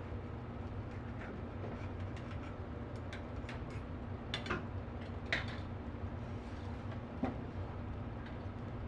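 A metal knife scraping and tapping along the edge of a round clamshell waffle iron, trimming off batter, with a few sharp clicks about halfway through and again later, over a steady low hum.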